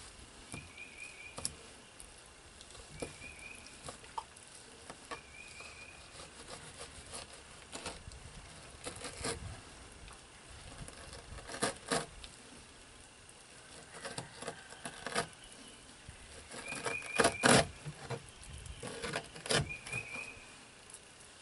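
Knife blade scraping and cutting along a fish fillet on a wooden plank as the skin is sliced off, with scattered scrapes and knocks on the board, the loudest about three-quarters of the way through. A short chirping trill of a few quick notes repeats every couple of seconds in the background.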